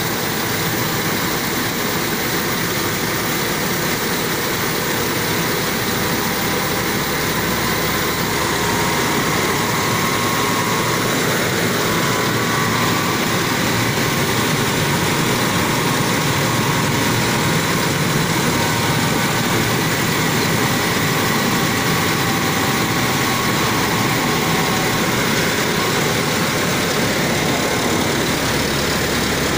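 Rice mill machinery running with a steady, loud mechanical drone as it mills sun-dried palay into rice.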